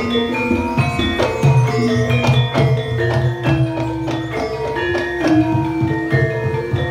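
Javanese gamelan playing dance accompaniment: struck metal-keyed instruments ring out a melody of held notes over steady drumming.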